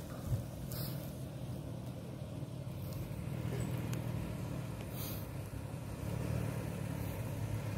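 Toyota 4Runner SUV's engine running low and steady as the truck crawls slowly down a sandy off-road trail, with a few faint clicks.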